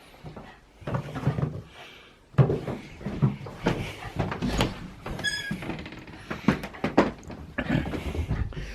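Indoor household knocks and thumps, a quick irregular run of them, with a brief high squeak about five seconds in.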